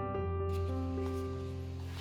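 Background music with slow, held keyboard notes.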